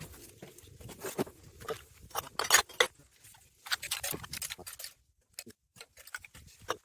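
Rubbish being handled and sorted by hand: irregular clicks, knocks and rustles of bottles and other litter being moved, loudest about two and a half seconds in and thinning out near the end.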